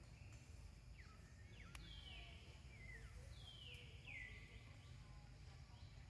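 Faint outdoor ambience with a steady low rumble, and a few short, high animal calls gliding down in pitch in the middle, the loudest near the two-thirds mark; a single sharp click comes just before them.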